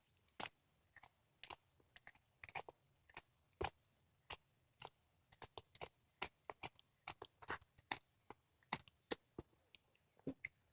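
Cat chewing a squirrel: an irregular run of short, sharp crunches and bites, a few a second, as it works through bone and flesh.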